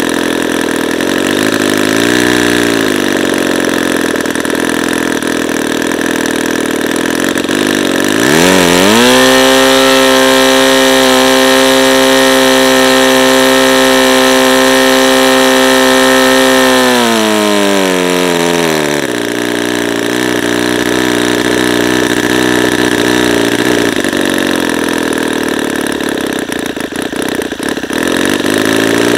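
Saito FA-90TS twin-cylinder four-stroke glow engine with a wooden propeller, idling with a short blip about two seconds in. About eight seconds in it is throttled up to a steady full-throttle run near 7,900 rpm, then brought back down to idle around seventeen seconds, dropping to about 2,000 rpm. Near the end it begins to rev up again.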